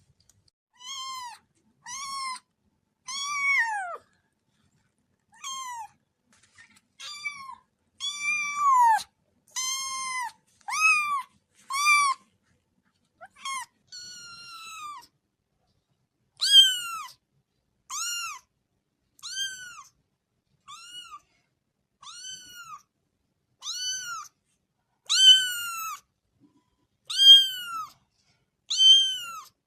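Kitten mewing over and over: short, high-pitched mews about one a second, each rising and then falling in pitch.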